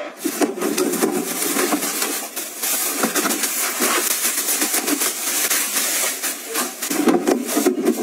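Plastic bin bags rustling and crinkling in a continuous crackle. A full liner of paper trash is lifted out of a trash can, then a new plastic bag is pulled open, with a fuller, lower rustle near the end.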